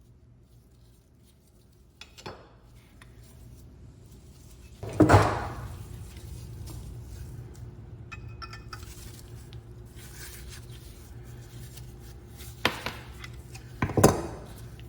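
Hard objects clanking and clinking together in a few separate knocks, the loudest about five seconds in and two more near the end, over a low steady hum.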